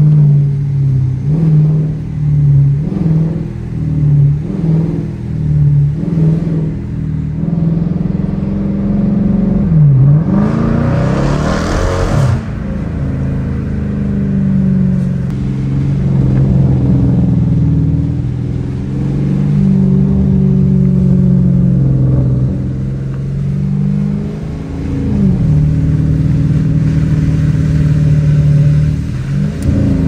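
Dodge Challenger R/T's 5.7-litre Hemi V8, heard from inside the cabin while driving, its pitch rising and falling with the throttle. The pitch dips briefly and comes back up twice, about ten seconds in and again a little after halfway, as at gear changes. A short rush of noise comes in just after the first dip.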